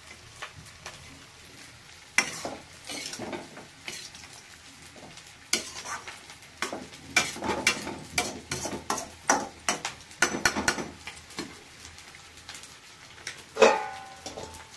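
Metal spatula stirring and scraping cauliflower and potatoes frying in a metal kadhai, with light sizzling; a quick run of scrapes and knocks against the pan through the middle. Near the end, one loud metallic clank that rings briefly.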